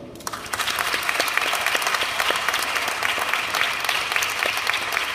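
Audience applauding, breaking out just after the start and keeping up a steady patter of many hands clapping at the end of a speech.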